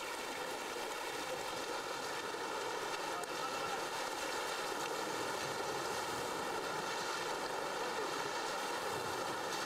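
Steady rush of shallow river water, stirred by elephants wading through it.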